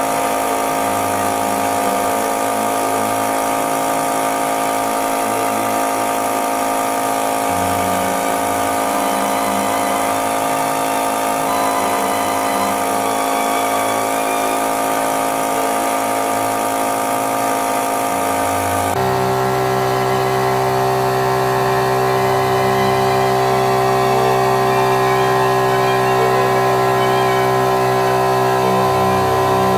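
Hydraulic press running with a steady hum from its motor and pump as the ram presses down; the hum changes to a different, lower-weighted steady tone partway through.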